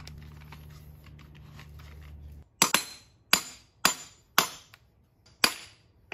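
One-handed bar clamps being tightened onto an aluminium mold housing: five sharp plastic-and-metal clacks, unevenly spaced, as the trigger handles are squeezed. A low steady hum runs underneath and stops about two and a half seconds in.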